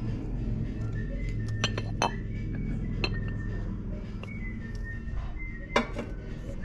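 Glass clinking as a blue glass covered dish is picked up and handled: several sharp clinks of glass on glass, the loudest near the end, over steady background music.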